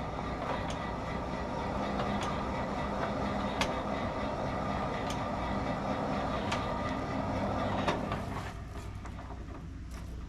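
Forge blower running, a steady rush of air with a hum, blasting the coal fire to reheat the iron nail rod; it dies away about eight seconds in. A few sharp ticks sound over it.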